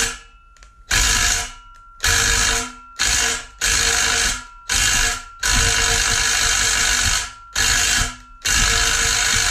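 DeWalt cordless impact driver hammering in about eight short bursts with brief pauses between, run back and forth to break seized, corroded bolts loose on a Leslie RS3L train horn.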